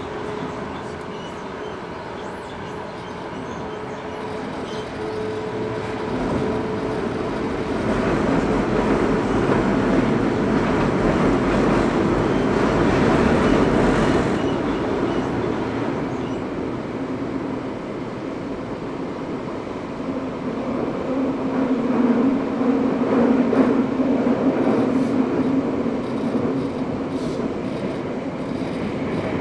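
Eidan 05 series (N05) subway train heard from inside the car, running through the tunnel: continuous rumble of wheels on rail with a steady motor hum. It grows louder from about six seconds in to a peak near the middle, eases off, and swells again with a low hum a little after twenty seconds.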